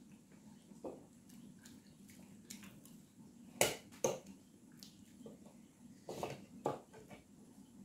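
Cutlery against ceramic plates: a few sharp clinks and scrapes of forks and a knife, the loudest about three and a half seconds in and another cluster around six seconds, over faint eating sounds.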